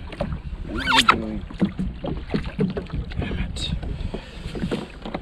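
Water lapping and slapping against the hull of a jet ski drifting at sea, in short irregular splashes over a steady low rumble.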